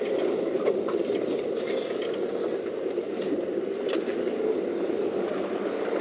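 Steady engine and tyre noise from inside a car crawling over a rough, overgrown dirt track, with a few light clicks and scrapes against the body.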